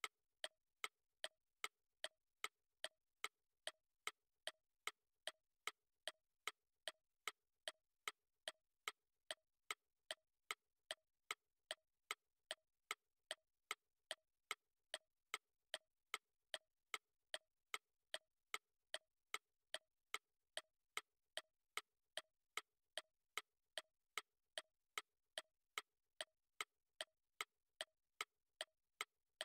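Clock ticking steadily, about two sharp ticks a second.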